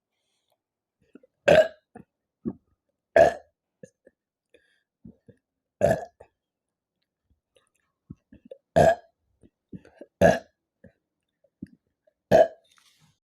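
A young woman burping from carbonated Pepsi: six loud, short burps every two to three seconds, with fainter short mouth sounds between.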